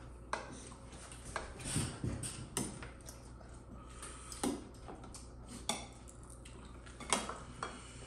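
Cutlery clinking against a dish while eating: several separate sharp clinks spread out over a few seconds, with a short scrape near two seconds in.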